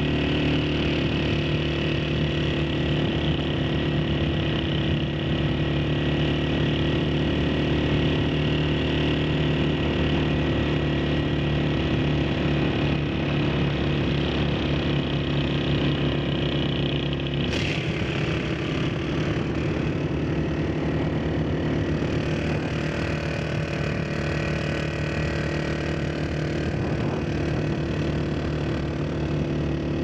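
Motorcycle engine running steadily while riding along a mountain highway. Its note shifts abruptly a little past halfway through.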